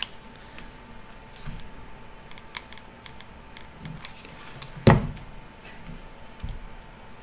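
Light clicks and taps of a hot glue gun and wooden clothespin being handled on a wooden tabletop, with one loud knock about five seconds in as the glue gun is set down. A faint steady whine runs underneath.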